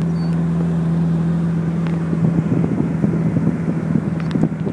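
Car engine idling with a steady low hum, turning rougher about halfway through.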